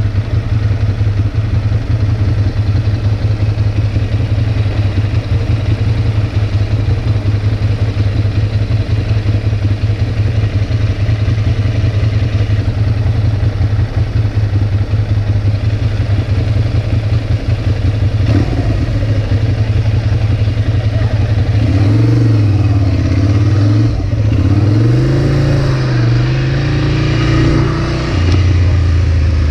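Ducati Monster's V-twin engine idling steadily, then about twenty seconds in revving up as the bike pulls away, rising and falling in pitch through a couple of gear changes.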